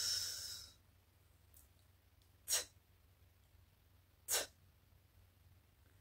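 A woman hissing a drawn-out "sss", the /s/ phonics sound of the letter S, which fades out within the first second. Then two short, breathy "t" sounds about two seconds apart, the /t/ phonics sound of the letter T.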